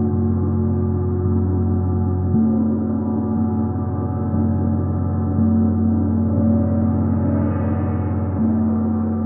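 Gong played with soft, repeated strokes about every three seconds. Its deep hum and dense overtones ring on continuously, swelling brighter near the end.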